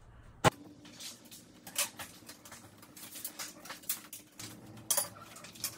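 Scattered light clicks and taps of window grid bars and a roll of weather-seal strip being handled and set down on a glass pane. A sharp click about half a second in is the loudest.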